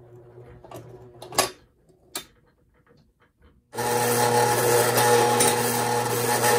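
Faint hum with two sharp clicks, then a little over halfway in a loud, steady mechanical whir starts abruptly: the electric motor and gearing of postwar Lionel model train equipment running.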